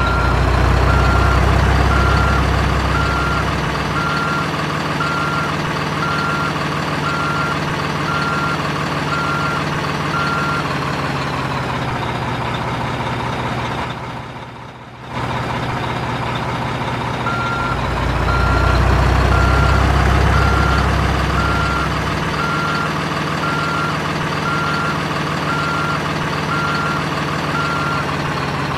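Truck engine running with a reversing alarm beeping at a steady, even pace. The engine rumble swells louder for a few seconds near the start and again in the second half, and the sound dips and breaks off briefly about halfway before starting again.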